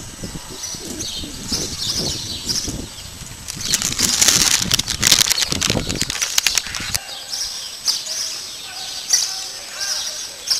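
Small birds chirping and twittering continually, with a low rumble for the first two-thirds and a loud stretch of rustling and crackling noise in the middle.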